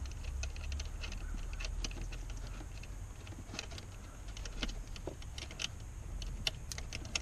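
Scattered light metallic clicks and clinks at an irregular pace: battery cable clamps and wires being handled and fastened onto the terminals of the boat's batteries.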